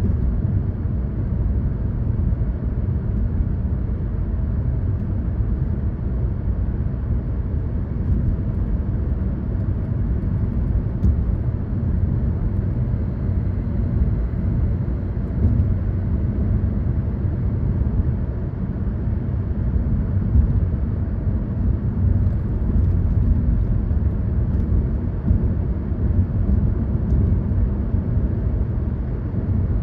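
A car driving along a road at a steady pace: a steady low rumble of engine and tyre noise with no change in speed.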